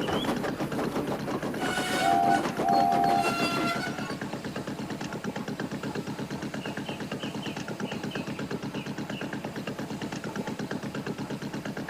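Steam locomotive chuffing in a quick, even rhythm, with two short whistle toots about two and three seconds in.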